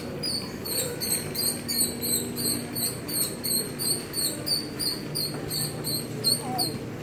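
Shopping cart wheel squeaking in a fast, regular rhythm as the cart rolls, about three high squeaks a second; it stops shortly before the end. It is called a crazy noise.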